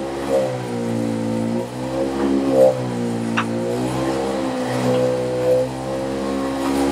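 Motorized chiropractic table running, its motor humming with a pitch that sinks and rises again in slow repeated cycles as it moves the patient's lower back through passive motion.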